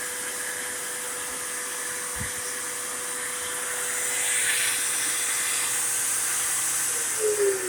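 Shop vacuum running with a steady hissing rush and a thin steady whine, swelling slightly about halfway through. Near the end a motor spins down, its pitch falling.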